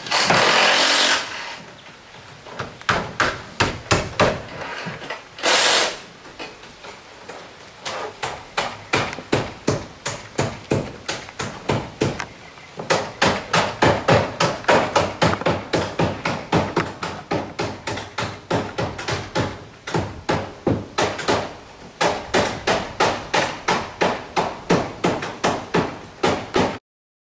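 Several roofers' hammers driving nails, sharp strikes in quick, overlapping runs of about three to four a second. There is a short rushing burst of noise at the start and another about six seconds in. The hammering cuts off abruptly near the end.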